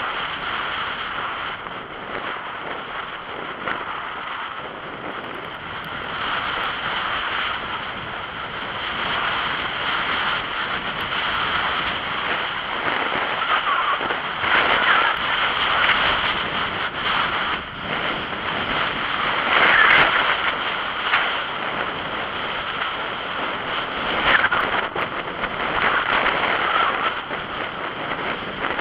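Wind rushing over a moving action camera's microphone as a mountain bike rolls along a tarmac path, with steady tyre noise and occasional knocks from bumps. The rush swells louder at times, most strongly about twenty seconds in.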